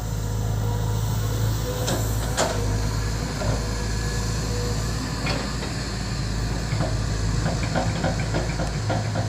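Volvo EC200D excavator's diesel engine running steadily, with a few sharp knocks about two seconds in and a quick run of small clicks near the end.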